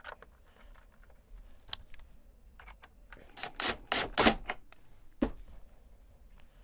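DeWalt cordless drill driving a screw through a small aluminium enclosure into a wooden desk, in four short bursts about three and a half seconds in, followed by a single sharp knock about a second later. Faint handling clicks come before.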